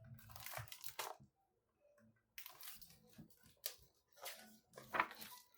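Faint, irregular rustling and crinkling of paper: the pages of a picture book being handled and turned.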